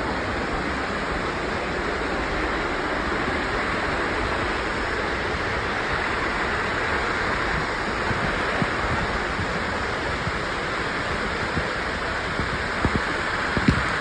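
Steady rushing of falling water, an even hiss, with a few soft knocks near the end.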